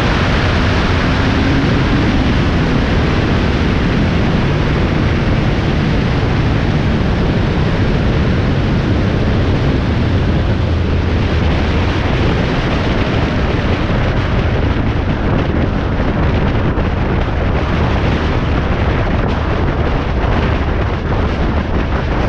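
Steady, loud wind buffeting on the microphone mixed with road noise from a vehicle moving at highway speed.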